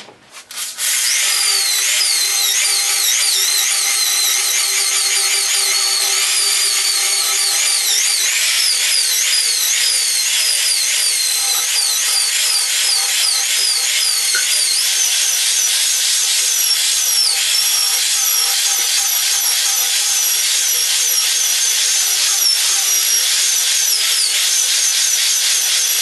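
Corded drill spinning a coarse wire brush wheel against the live edge of a wooden board, scraping off bark and tearing away the soft grain. The drill starts up about a second in and then runs steadily under load, with a scratchy hiss and a high whine that wavers in pitch as the brush is pressed and moved along the edge.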